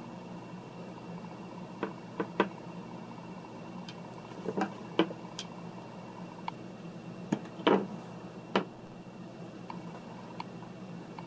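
Hobby knife blade trimming flash off a cast piece in a silicone mold: scattered sharp clicks and short scrapes as the blade catches the casting, over a low steady hum.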